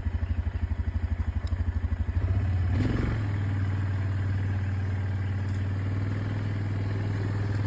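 Four-wheeler (ATV) engine idling with a fast, even pulsing beat, then picking up to a steadier, stronger drone about two seconds in as it is throttled up and moves off.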